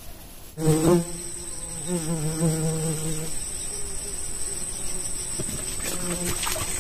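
Insects: a steady high-pitched insect trill, as of a cricket, that sets in suddenly about half a second in, and a fly buzzing close by, its pitch wavering, for about three seconds and again briefly near the end.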